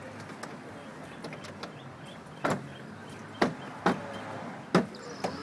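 Four sharp knocks at uneven intervals, the first about halfway in and the rest over the next two seconds or so, with a few fainter clicks over a low steady background noise.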